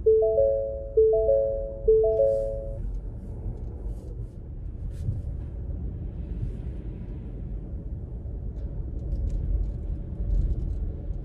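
A car's three-note electronic chime sounds three times in quick succession over the first three seconds. Then there is the low rumble of the car rolling slowly, heard from inside the cabin.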